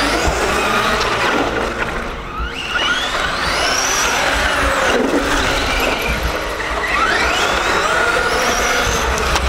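Electric motors of Traxxas RC cars running flat out, their high whine rising as they accelerate and falling back several times, over a rush of tyre and gear noise.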